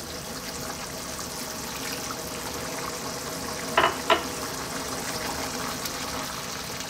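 Water poured into a pan of berbere lentil-and-lamb stew, which sizzles and bubbles steadily as it thins. Two short knocks sound about four seconds in, and a wooden spoon stirs the stew near the end.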